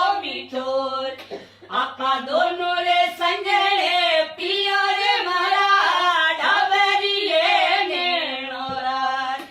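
A woman singing a Rajasthani folk song in a single melodic line, with long, ornamented held notes. She pauses briefly for breath about a second in, and the phrase breaks off at the very end.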